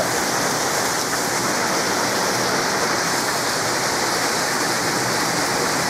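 Heavy rain pouring down steadily, a loud, even hiss with no breaks.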